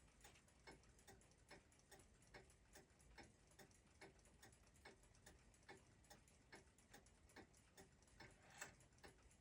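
Faint, even ticking of a mechanical clock, about two and a half ticks a second with louder and softer beats in turn, and one light knock near the end.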